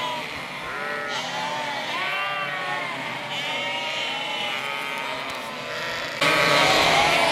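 A mob of ewes and lambs bleating continuously, many calls overlapping. The bleating gets suddenly louder about six seconds in.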